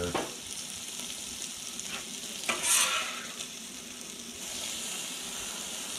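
Diced Angus beef sizzling on a Blackstone flat-top griddle. About two and a half seconds in there is a brief louder burst of sizzling and scraping as a steel spatula turns the meat.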